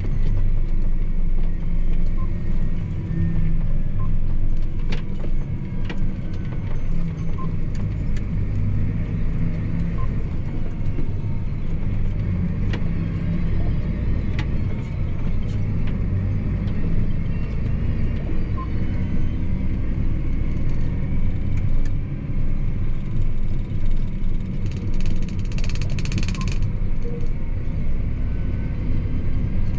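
John Deere 8245R tractor's six-cylinder diesel engine running steadily under way, heard from inside the cab, with a deep rumble and scattered light rattles and clicks from the cab. A brief hiss comes in near the end.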